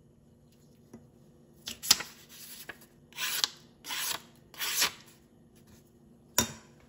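Knife blade slicing through a sheet of paper to test its edge: three cuts in quick succession, each about half a second long, with a sharp snap before them and another near the end.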